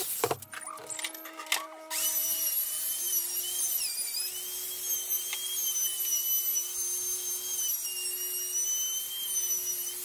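A few clicks and a low hum, then from about two seconds in a small high-speed handheld power tool runs on a wooden panel with a steady high-pitched whine whose pitch wavers slightly as it cuts.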